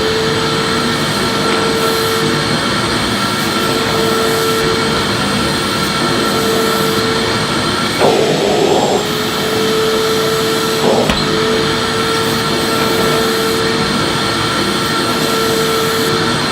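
Electric vacuum cleaner running and vacuuming, a steady rushing noise with a constant motor whine. About eight seconds in the whine breaks briefly into a louder rushing surge, and a short click follows a few seconds later.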